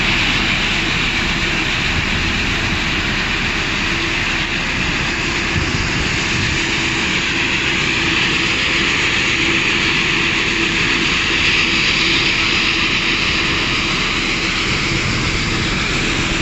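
Industrial ball mill in a gold processing plant running: a loud, steady rushing noise with a faint low hum beneath it, starting abruptly as the music cuts off.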